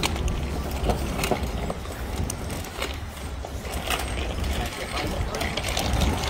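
Child's bicycle with training wheels rolling along a concrete sidewalk, giving scattered clicks and rattles over a steady low rumble.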